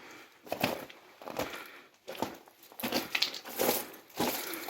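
Footsteps crunching and scuffing on stones and gravel, an uneven run of sharp crunches with short pauses between them.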